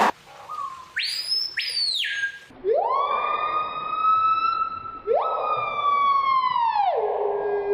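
A bird mimicking a siren with clear, wailing whistles. A short high whistle rises and drops away, then two long wails each sweep up, hold, and fall, the last settling on a low held note.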